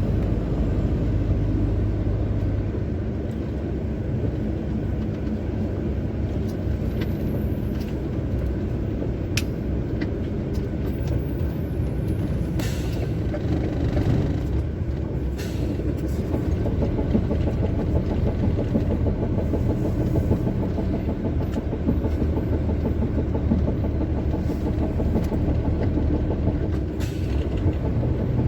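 Heavy truck driving, heard from inside the cab: a steady low engine drone with road noise, and a few short sharp clicks here and there.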